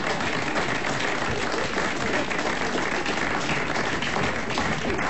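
Studio audience applauding, a steady dense clapping that holds at an even level throughout.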